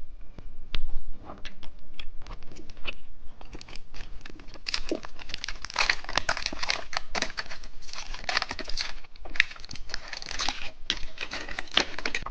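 Plastic candy packaging crinkling and being torn open: a dense, irregular crackle that gets busier and louder about four to five seconds in.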